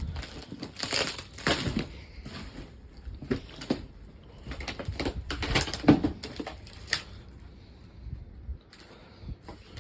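Irregular crunching and knocking: a string of short, sharp noises at uneven intervals, with a quieter spell near the end.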